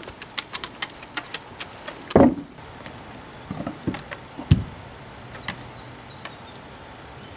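A dog's claws clicking on a wooden deck as it walks, fading out about one and a half seconds in. A loud dull thump follows about two seconds in, then a few lighter knocks and another loud thump about four and a half seconds in, as the raw cow bone is set down on the boards.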